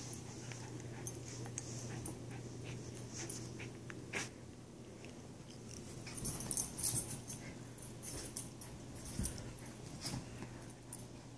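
A schipperke's breathing and small dog noises, with scattered scratching and rustling of a fabric dog bed as it paws at it, busiest about six to seven seconds in.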